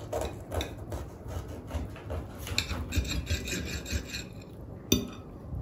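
Table knife sawing back and forth through a baked, cheese-topped tortilla wrap on a ceramic plate, a rasping scrape with each stroke. A single sharp tap near the end.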